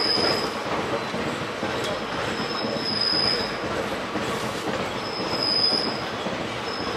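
Express train running on the rails: a steady, even rumble, with a short high tone coming back about every two and a half seconds.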